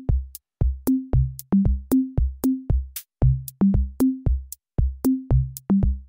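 Electronic background music: a drum-machine beat of short pitched drum hits with sharp clicks, about four a second.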